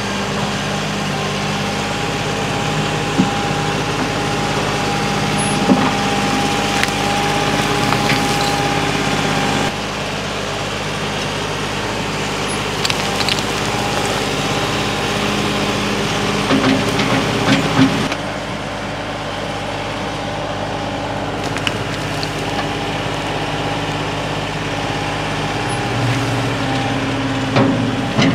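Tractor engine running steadily while the front-loader bucket dumps dirt and rocks into a post hole, with a few short knocks from falling rocks and clods. The engine note steps down twice, about a third and two-thirds of the way through.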